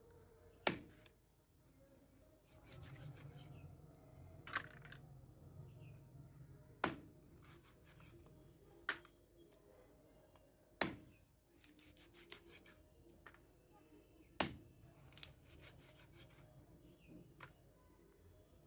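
A heavy knife chopping chicken pieces on a wooden stump chopping block: six sharp, loud chops spaced irregularly, about two to four seconds apart, with lighter knocks and taps of the blade between them.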